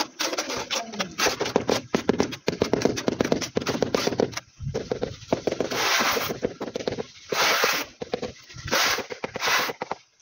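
A large ceramic wall tile being bedded into tile adhesive: a quick run of taps on the tile in the first few seconds, then several short scraping rubs as the tile is worked and pressed flat.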